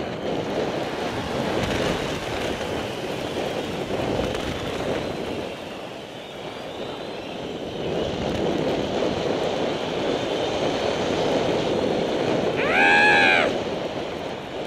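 Steady rushing wind on a helmet-camera microphone, mixed with the hiss of skis running through powder snow during a fast descent. Near the end comes a short, loud, high-pitched whoop from a person, rising and falling.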